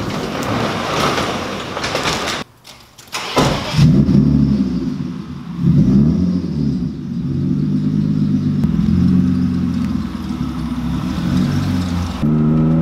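BMW E36's M50 inline-six starting about four seconds in, revved a couple of times, then running as the car pulls out and rolls past, through a Flowmaster 40 series muffler with the catalytic converters and resonators fitted.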